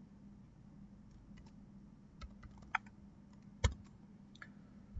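Computer keyboard keys clicking, a dozen or so sparse, irregular presses, with one sharper click a little past the middle. A faint steady hum runs underneath.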